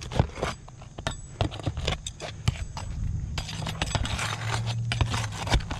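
Asphalt roof shingles being handled and pried with a steel flat bar: a scatter of light clicks, taps and scrapes as the shingle tabs are lifted, over a steady low hum.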